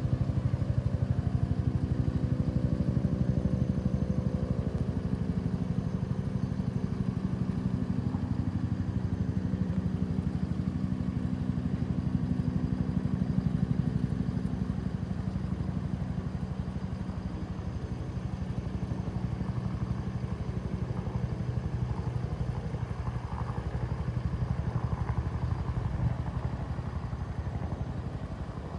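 Bell 205A-1 helicopter in flight, its two-bladed main rotor beating in a rapid steady rhythm over the hum of its Lycoming T53 turbine. It is loud throughout and eases slightly in the second half.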